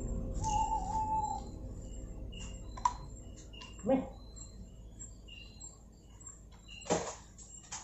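Night-time woodland ambience of short, high chirping calls repeating every second or so. A low rumble fades after the first second and a half, a brief rising call comes about four seconds in, and a couple of sharp snaps fall in the middle and near the end.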